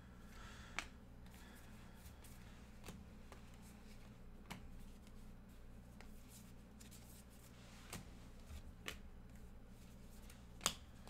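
Bowman Chrome baseball cards being flipped one by one through a hand-held stack, with about seven sharp clicks and card-slides spaced irregularly a second or two apart, the last one the loudest, over a faint low hum.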